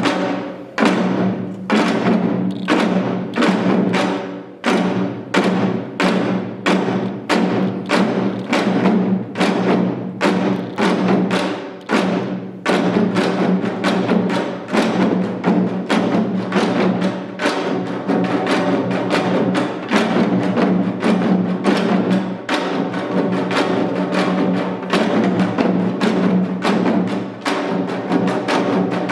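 Janggu (Korean hourglass drums) played in the seated seoljanggu style. Sharp strokes come about two a second and become denser and busier after about twelve seconds.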